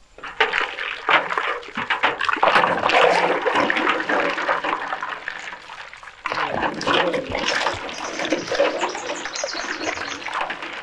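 Water sloshing and splashing in a large steel tub as a steel ladle stirs and mashes soaked falsa berries, with quick knocks and scrapes of the ladle against the tub. The stirring pauses briefly a little past halfway, then starts again.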